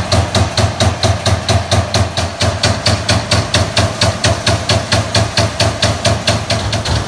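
Finn-Power SG5 CNC turret punch press punching holes in sheet metal, in rapid even strokes of about five a second over a steady machine hum.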